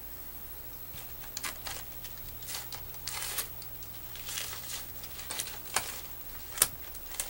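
Crinkling, tearing rustles of embroidery stabilizer and fabric being handled as pieces of tape are pulled off, coming in short irregular bursts. A single sharp click, louder than the rest, sounds near the end.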